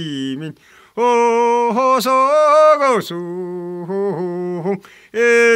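Elderly man singing solo without accompaniment, holding long, wavering notes, with short breaths between phrases.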